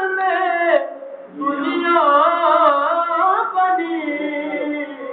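A solo voice sings a naat, an Urdu devotional song to the Prophet, unaccompanied. A phrase ends about a second in, and after a short breath a new line begins with wavering, ornamented held notes that settle onto a lower sustained note near the end.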